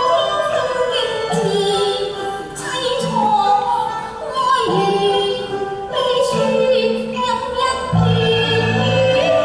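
Cantonese opera singing: a high voice sliding and ornamenting its notes in long phrases over instrumental accompaniment. Held low notes in the accompaniment come in and out, growing steady near the end.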